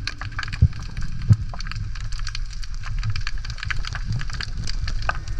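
Underwater ambience heard through a submerged camera: a dense, continuous crackle of tiny clicks over a low water rumble, with two louder thumps about half a second and a second and a quarter in.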